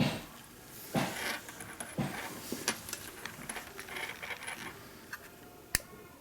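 Scattered sharp clicks and light metallic clatter of radio gear and cables being handled, with a few louder knocks spaced about a second apart.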